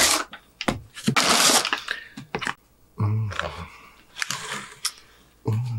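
Crinkling and rustling of fast-food packaging as plastic and paper containers are handled and unpacked, in loud, irregular bursts with scattered clicks, and two short low sounds about three seconds in and near the end.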